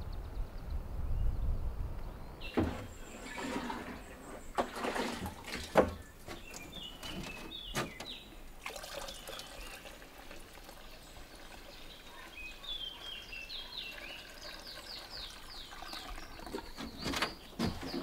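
Liquid poured from a plastic jug into a backpack sprayer's tank, with gurgling and knocks from handling the jug, starting after a low rumble in the first two seconds. Birds chirp in the later part.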